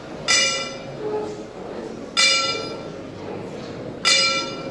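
Boxing ring bell struck three times, about two seconds apart, each strike ringing on and fading: part of a ten-bell salute for a dead boxer.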